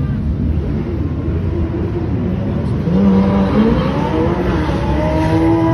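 Several Ferrari sports cars driving past on the track. From about halfway through, their engines rev up and rise in pitch as they accelerate.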